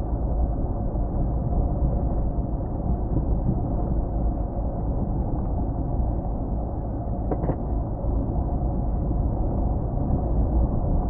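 Car driving along a road: a steady low rumble of engine, tyre and wind noise, with a brief click about seven seconds in.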